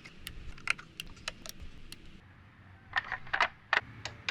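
Sharp, irregular clicks and light metallic clatter of hand tools and parts as the spark plugs, ignition coils and engine cover go back onto the engine, with a quieter lull around the middle.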